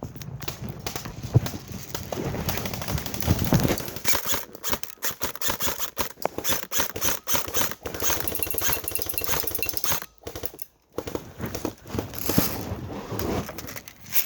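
Airsoft guns firing in rapid strings of sharp snapping shots, with a short break about ten seconds in.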